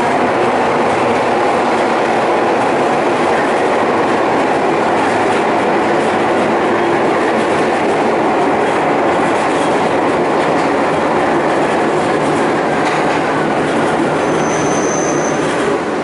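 Nagano Electric Railway local train running, heard from inside the carriage: steady, loud wheel-on-rail and running noise. A faint falling whine comes in the last few seconds, with a brief high squeal near the end.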